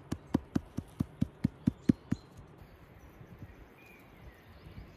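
A fast, even series of sharp knocks, about five a second, that stops about two seconds in, followed by faint outdoor background with a brief bird chirp.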